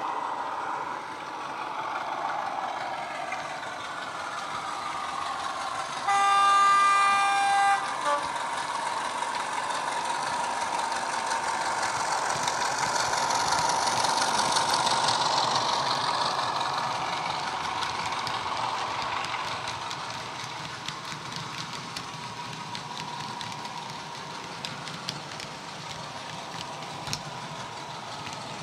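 Heljan OO gauge Class 33 model locomotive's ESU LokSound 5 DCC sound decoder playing a Class 33 Sulzer diesel engine through its on-board speaker as the model runs past. Engine sound growing louder toward the middle as it passes, then fading. One horn blast of nearly two seconds about six seconds in.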